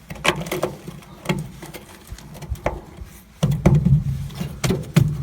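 Scattered knocks and handling clatter on the old soybean planter's rusted boxes, with a low rumble joining about three and a half seconds in.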